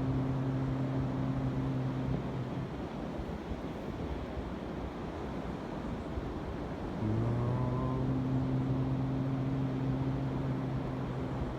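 A low voice holding long chanted tones of chakra vocal toning, one fading out about two seconds in and another starting about seven seconds in and held to the end. Wind and surf make a steady rush underneath.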